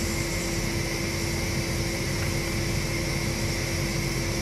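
Steady drone of running machinery, with a constant hum tone and no separate knocks or clicks.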